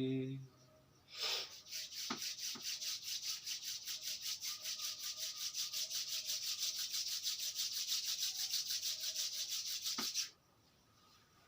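Brisk rhythmic rubbing, about five strokes a second, starting about a second in and cutting off suddenly near the end, with a couple of light knocks along the way.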